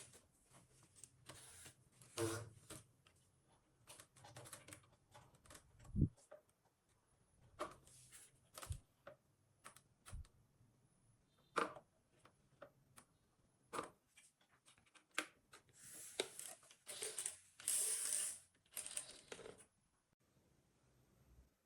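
Faint scattered clicks, taps and a low knock of small hand work, with a longer stretch of rustling near the end.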